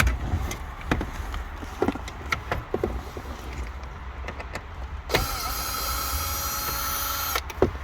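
A few light clicks and knocks, then a cordless power driver spinning steadily for about two seconds as it backs out a 7 mm dash screw, stopping with a click.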